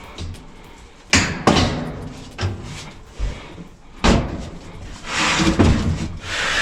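Sheet-metal washer cabinet panels being handled: a series of sharp clunks and knocks, then a longer scraping rattle near the end.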